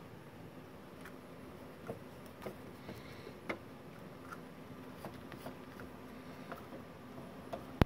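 Light clicks and taps, scattered about once a second, with one sharp, much louder click near the end, over a faint steady hum.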